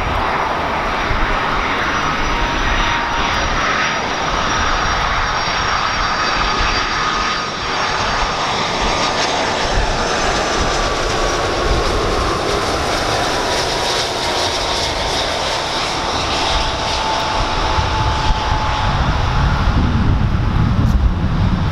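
Airbus A330-300 airliner's twin Rolls-Royce Trent 700 turbofan engines on final approach, a loud, steady jet noise with a whine that slowly falls in pitch as the aircraft passes. A deeper rumble builds near the end as it comes down to touchdown.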